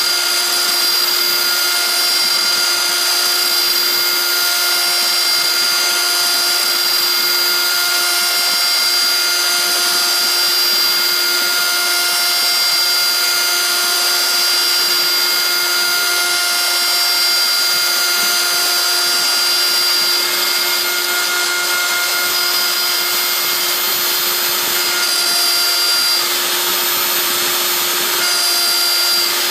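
Small CNC milling spindle running at a steady high-pitched whine while its end mill cuts a pocket into an aluminium plate, with the hiss and chatter of cutting under the whine.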